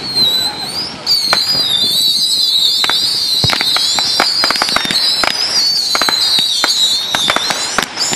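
Fireworks going off: a continuous, wavering high whistle that starts about a second in and lasts until near the end, with many sharp pops and crackles.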